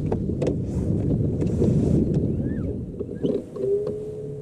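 Wind and water noise on a bass boat, with scattered light clicks and knocks. A steady, even whine sets in near the end.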